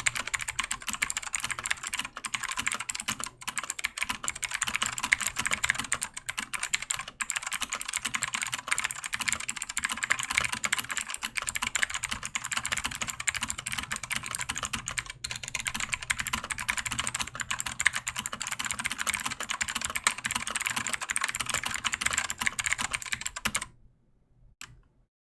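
Fast, continuous typing on a Keychron K4 keyboard with a plastic case and clicky LK Optical Blue switches, each keystroke giving a sharp click. The typing stops near the end, with one or two faint clicks after.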